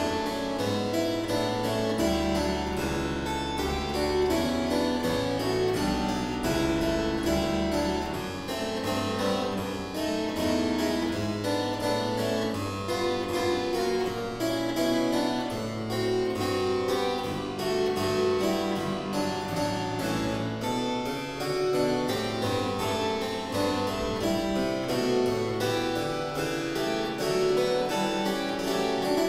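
Solo harpsichord playing: a Frank Hubbard French double harpsichord, built from a kit. It plays a steady stream of quick plucked notes over a lower bass line, without a break.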